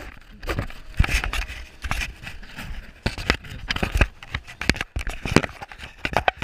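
Handling noise: fingers rubbing and bumping on the camera, an irregular string of scrapes and knocks.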